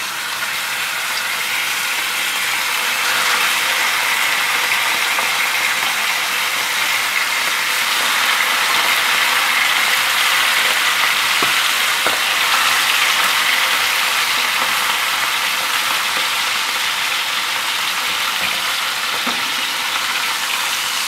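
Veal escalopes sizzling as they sear in butter and oil that has been heated until its foaming died down: a steady, loud frying hiss.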